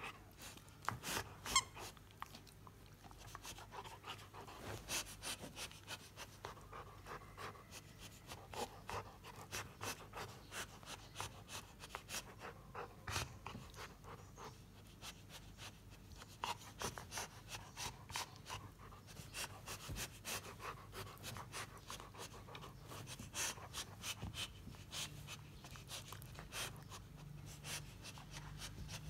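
Labrador retriever chewing and mouthing a plush squeaky toy: irregular short clicks and soft crunches from its jaws on the toy, with panting.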